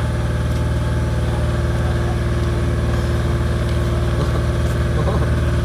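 An engine idling steadily, with an even low throb.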